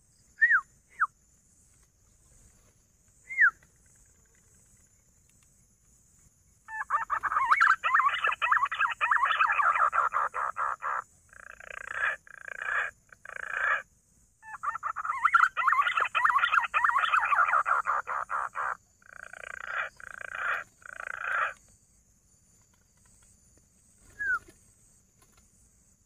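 Green pigeons (punai) calling: a few short falling whistles, then two long stretches of fast, rattling calls, each ending in several shorter bursts.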